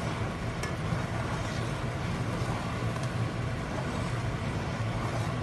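Semolina and sugar syrup bubbling and sizzling in a steel pan as halwa cooks, over a steady low hum, with a couple of faint clicks of the stirring spoon.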